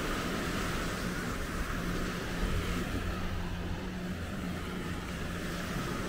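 Steady wash of surf and wind with a low, even engine drone running through it.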